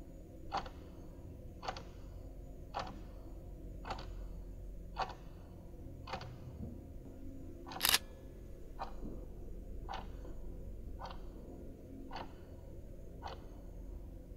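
Clock ticking slowly, about one tick a second, over a faint low hum, with one louder, sharper click about eight seconds in.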